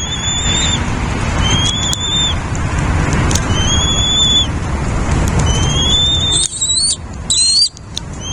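Nestling birds' high, thin begging calls, repeated every second or two, with several overlapping near the end, over a steady low rushing noise.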